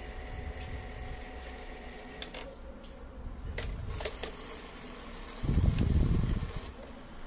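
VCR deck mechanism running on test: a few sharp mechanical clicks from about two seconds in, then a loud low rumble lasting just over a second, over a steady hum.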